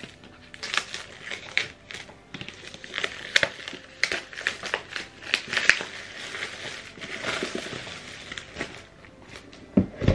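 Clear plastic wrap crackling and crinkling as it is peeled and pulled off a cardboard product box, in quick irregular bursts. A couple of dull knocks come near the end.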